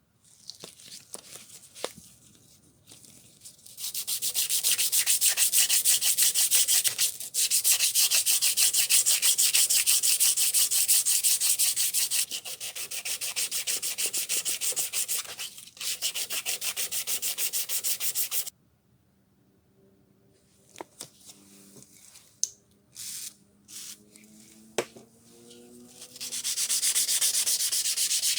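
Sanding: an abrasive worked rapidly and evenly over the hammer, in long runs broken by brief pauses. A quieter spell with scattered clicks and handling knocks comes a little past the middle.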